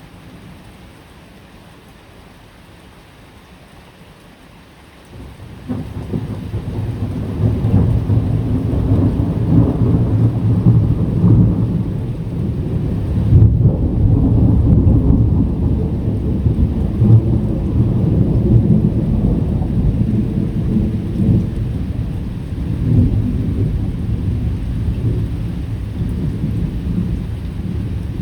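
Faint rain, then about five seconds in a long, low rumble of thunder sets in suddenly and rolls on, swelling and easing through the rest.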